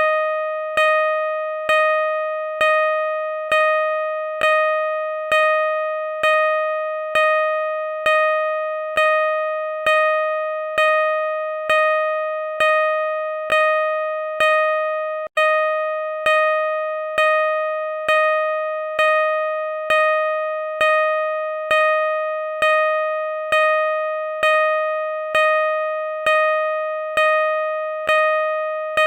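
Car parking sensor beeping: one mid-pitched electronic tone pulsing at a steady, slow rate of about one beep a second, each beep fading into the next. A steady slow rate like this is what a sensor gives while the obstacle is still some way off. There is a very short break in the tone about halfway through.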